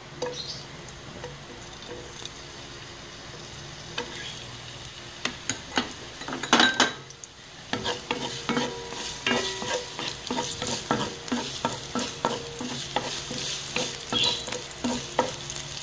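Ginger sticks sizzling in hot oil in a granite-coated pan while a wooden spatula stirs and scrapes them with many short clicks. The sizzle builds from about four seconds in, and there is a loud clatter about six and a half seconds in.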